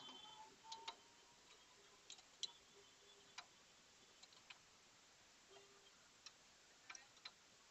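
Faint, irregular metallic clicks and taps from a 19 mm wrench working a motorcycle's rear axle nut tight.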